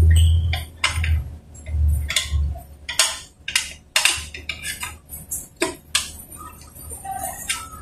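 Irregular metal clicks and clinks of hand tools and parts being handled at a motorcycle's rear wheel hub and brake, with a low rumble near the start.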